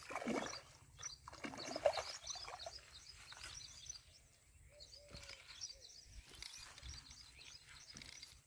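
A hooked tilapia splashing at the water's surface in the first two seconds, then a quieter stretch with birds chirping throughout.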